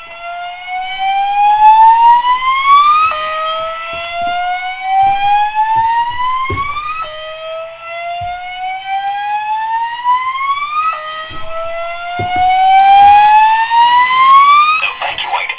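Wheelock DV-200 voice evacuation unit sounding its slow-whoop evacuation tone through its speaker: a loud tone that rises steadily over about four seconds, drops back and starts again, about four whoops in all. Faint short high-pitched beeps come and go underneath.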